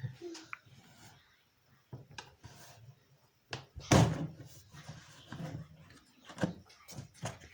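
A series of short knocks and clicks of objects being handled and set down, with one louder thud about four seconds in.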